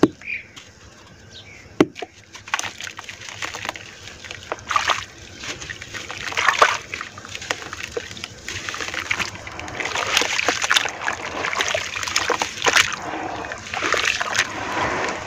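Hands crushing and crumbling wet clumps of red dirt in a bowl of muddy water: wet crumbling, squishing and splashing that grows busier and louder from about the middle on. A single sharp knock about two seconds in.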